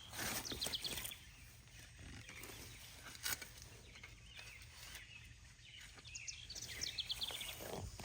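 Birds chirping in quick repeated notes, loudest near the start and again near the end, over scattered scrapes and knocks of digging in garden soil.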